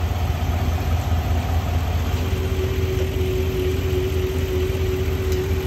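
A car engine idling: a steady low drone, joined by a steady higher hum about halfway through.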